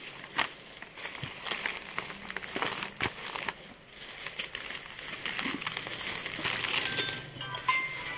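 Cloth and its paper or plastic packaging rustling and crinkling as a child's kurta is held up and laid out on its box, with a few light knocks.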